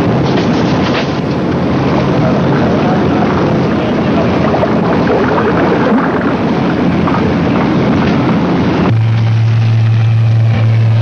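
Wind buffeting the microphone and sea rushing on a ship's open deck; about nine seconds in, a steady low drone of a propeller aircraft flying over takes over.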